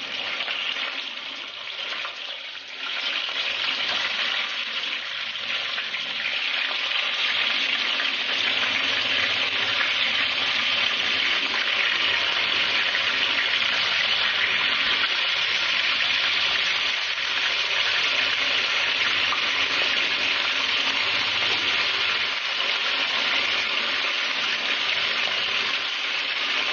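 Marinated chicken pieces sizzling as they fry in hot oil in a frying pan. The sizzle builds over the first few seconds as more pieces go in, then holds steady.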